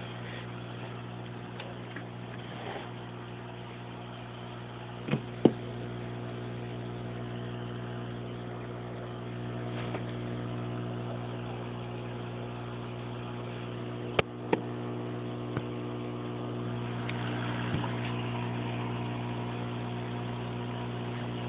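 Tetra Whisper 20 aquarium air pump running under a cloth, a steady electric hum with a faint hiss, along with air bubbling from the air stone. A few sharp clicks sound about five seconds in and again about fourteen seconds in.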